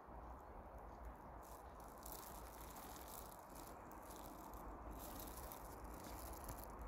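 Near silence: faint, steady outdoor background noise with no distinct event.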